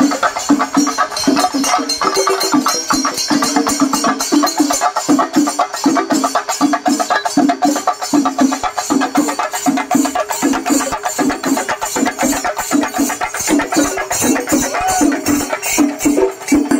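Chenda drum ensemble playing fast, dense stick strokes over a regular lower drum beat.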